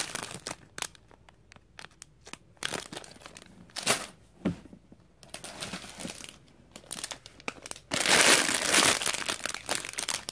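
Clear plastic LEGO parts bags crinkling in the hands in scattered crackles, turning into a loud, continuous crinkle about eight seconds in.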